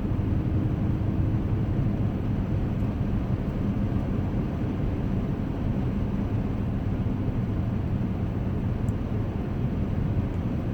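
Steady low rumble of a 2010 Acura MDX on the move, heard from inside the cabin: engine and tyre noise with no change in level.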